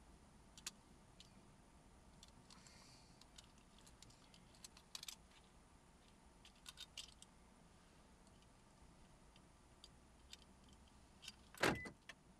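Small plastic clicks and snaps of a car key fob being handled and pieced back together, scattered and faint, with one louder snap near the end.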